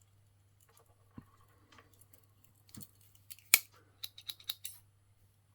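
Small scissors on a Victorinox Pioneer X Swiss Army knife being opened and worked, giving scattered light metal clicks and snips, with the sharpest click about three and a half seconds in and a quick run of clicks just after.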